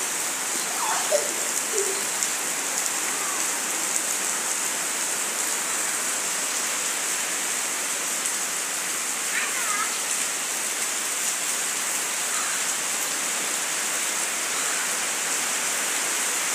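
Heavy rain falling steadily, a constant hiss of downpour on wet ground and puddles.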